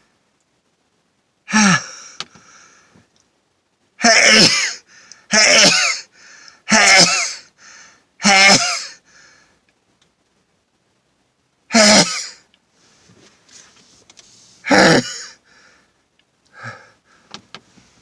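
A man sneezing repeatedly, fits brought on by pepper snuffed up his nose. A run of four loud sneezes comes in quick succession about four seconds in, then two more a few seconds apart.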